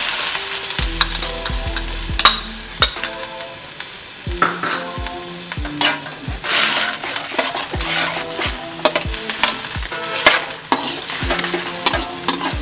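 Perforated metal spatula scraping and knocking against a metal wok as vegetables in a thin, watery sauce are stirred, about one to two strokes a second, over a light sizzle from the pan.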